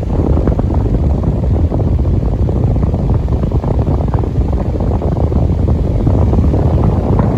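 Delta Gold electric fan running, its airflow buffeting the microphone in a loud, steady low rumble.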